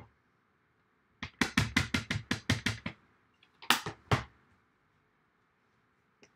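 A stamp tapped quickly on an ink pad to ink it, about five or six light knocks a second for over a second, followed a second later by two firmer knocks.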